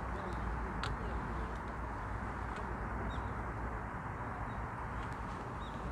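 Steady outdoor background noise with faint, short bird chirps now and then, and a single sharp click about a second in.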